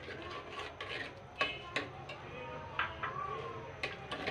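Metal spoon stirring a thick mashed turnip and spinach curry in a terracotta clay handi, scraping and clinking against the pot's sides in irregular strokes.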